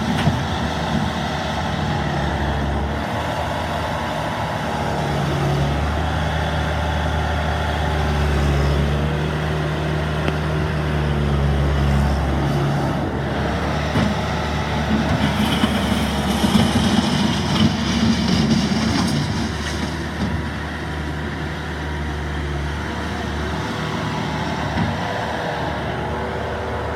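Bobcat A300 skid steer loader's diesel engine running steadily. Its low hum grows stronger for several seconds in the first half. A hiss joins it for a few seconds past the middle.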